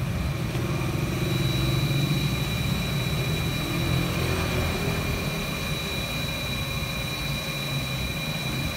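Grundfos pump's electric motor running steadily on a Mitsubishi F700 inverter: a continuous low hum with two thin, steady high whining tones that firm up about a second in.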